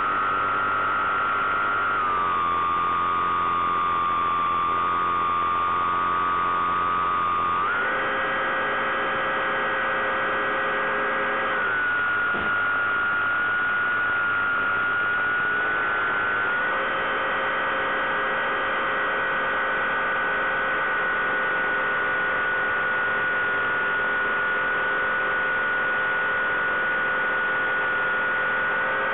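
Bix3 (Bixler 3) RC plane's electric motor and propeller humming steadily in flight, heard from on board. Its pitch drops about two seconds in, rises again near eight seconds, dips slightly, then climbs once more about two-thirds of the way through and holds, following the throttle.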